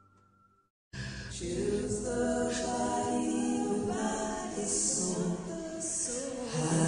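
Background music: after about a second of silence, unaccompanied group singing starts abruptly and holds sustained vocal harmonies.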